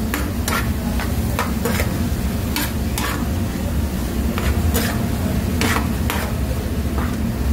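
Vegetables stir-frying in a wok: a spatula scrapes and tosses them about a dozen times, often in quick pairs, over a steady sizzle and a low rumble.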